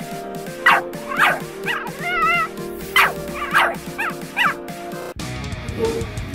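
Staffordshire Bull Terrier puppy yipping and whining, about eight short high yips with one longer wavering whine about two seconds in, over background music. The yips stop about five seconds in and the music carries on.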